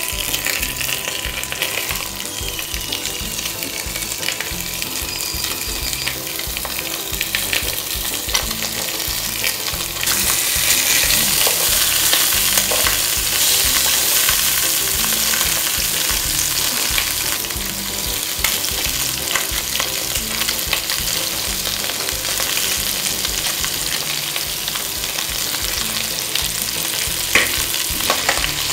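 Grass carp tail and bones frying in oil in a stainless steel pot: a steady crackling sizzle with many small pops. It gets louder about ten seconds in as the pieces are turned with chopsticks.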